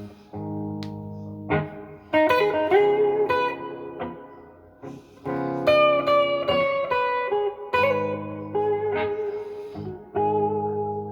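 Gibson SG Special electric guitar on its neck pickup playing a slow blues lead through a Fender Blues Junior IV amp: single picked notes with string bends over held low chords.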